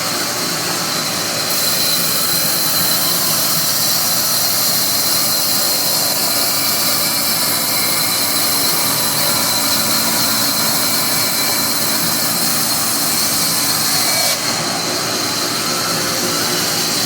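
Sawmill saw cutting acacia wood: the machine runs steadily, and a loud high hiss and squeal sets in about a second and a half in as the blade goes through the wood, easing off about fourteen seconds in as the cut ends.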